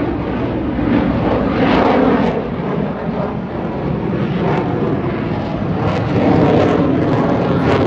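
Loud, steady jet noise from a USAF Thunderbirds F-16 fighter flying overhead, with a rough, crackling edge to the sound.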